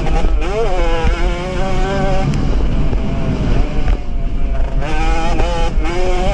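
Jawa 50 racing moped's small two-stroke engine revving hard under load, its pitch climbing about half a second in, dropping off about two seconds in, then climbing again near five seconds as the rider works the throttle and gears.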